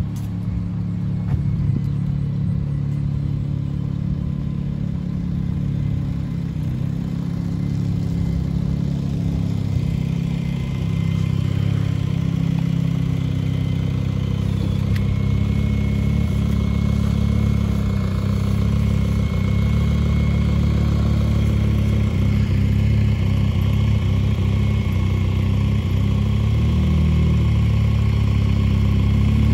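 Vehicle engine idling steadily, with a faint steady whine joining about halfway through.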